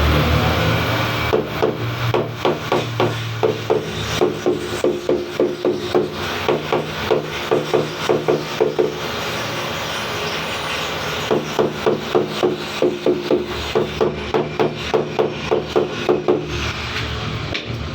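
Rapid rhythmic tapping on a hard surface, about two to three knocks a second, each with a short ringing note, in two runs with a pause of about two seconds between them, over a low steady hum.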